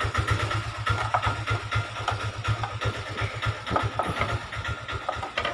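A steady, rapidly pulsing low rumble like an idling engine runs throughout, with a few light clicks and taps from the speaker's case being opened.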